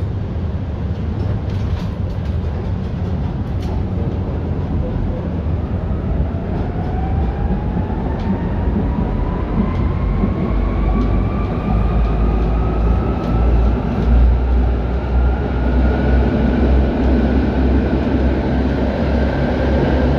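1965 ASEA M28 tram running, its traction motors whining in a pitch that climbs smoothly and steadily as it accelerates. The low rumble of the wheels on the rails grows louder about halfway through.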